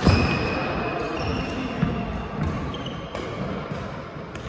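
Badminton play on an indoor court: sharp racket-on-shuttlecock hits every second or so, with short high squeaks of court shoes on the floor.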